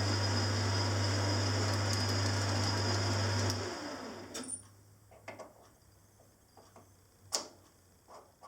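Small metalworking lathe running with a steady hum, taking a spring pass on a brass piston, then switched off about three and a half seconds in and running down. Afterwards a few faint clicks and one sharp knock.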